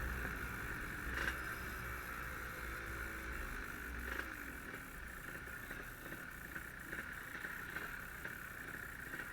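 Yamaha RD135 two-stroke motorcycle engine running steadily while riding, under a low rumble.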